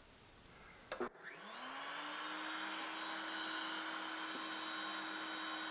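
A short knock about a second in, then an electric router starts up with a rising whine and settles into a steady high-speed run, spinning a 14-degree, 3/4-inch dovetail bit.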